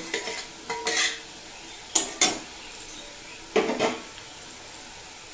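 Steel bowl and metal spatula clanking against a metal kadai as fried potato and brinjal pieces are tipped in and stirred into cooked greens: a few separate metallic clanks.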